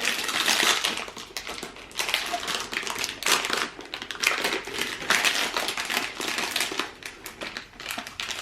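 Plastic toy packaging crinkling and rustling in repeated bursts as it is handled and pulled open.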